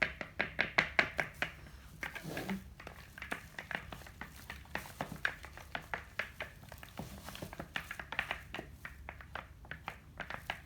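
Slime mixture being stirred with a stick in a container, a run of quick, irregular clicks and taps that are busiest in the first second and a half.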